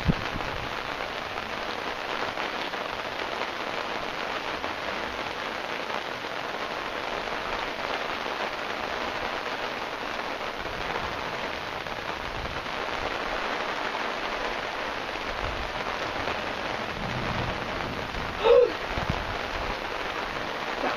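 Heavy rain falling steadily, a dense even patter. Near the end a single brief, loud knock stands out above the rain.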